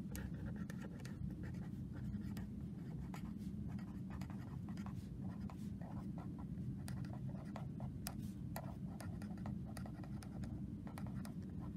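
A pen writing on lined notebook paper: many short strokes in quick succession as a line of words is written out, over a faint steady low hum.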